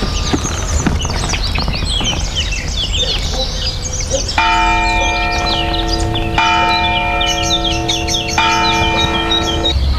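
Small birds chirping steadily. About four seconds in, a bell starts tolling: three strokes about two seconds apart, each ringing on, until it cuts off sharply near the end.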